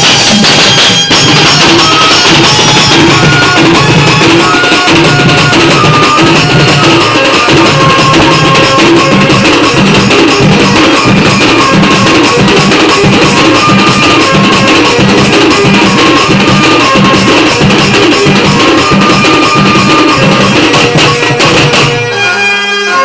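Loud Indian band-party music: drums and percussion keeping a steady repeating beat under a melody line. About 22 s in, the full band drops out briefly, leaving a thinner texture.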